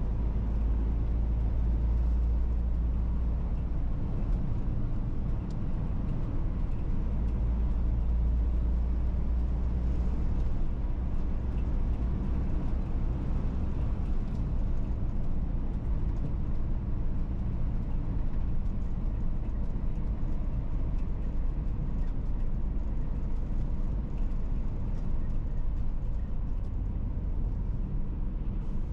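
Car on the move: steady low rumble of engine and tyres on the road.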